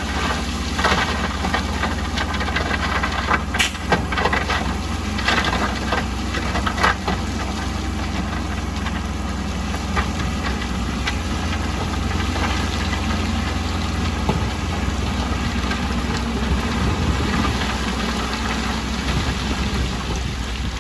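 Heavy diesel construction machinery running steadily with a deep hum, with scattered knocks and clanks during roughly the first seven seconds.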